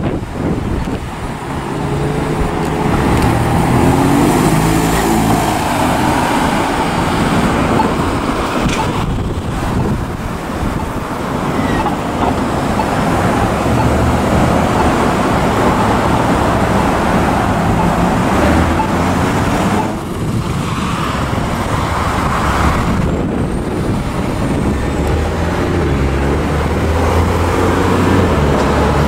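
Passing road traffic: cars and trucks driving by on a busy street, engines pulling away and tyres on the pavement, a steady loud rush that rises and falls as vehicles pass.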